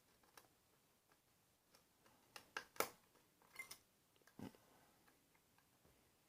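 Faint clicks and scrapes of a diamond lock pick working the pins of an Ilco pin-tumbler lock under tension, with a cluster of sharper clicks about halfway through.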